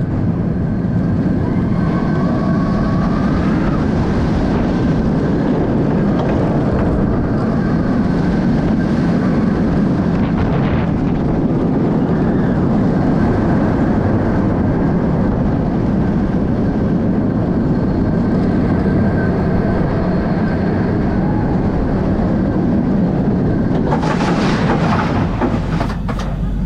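Bolliger & Mabillard inverted roller coaster train running the course at speed: a steady, loud roar of the wheels on the steel track, with a faint high whine over it. Near the end the sound turns hissier.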